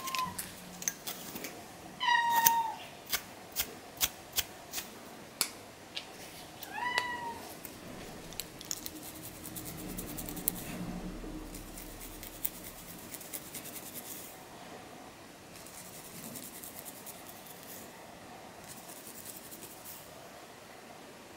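A domestic cat meows three times in the first seven seconds, short falling calls, with sharp clicks in between; later come faint scratchy sounds of fingernails scratching through hair.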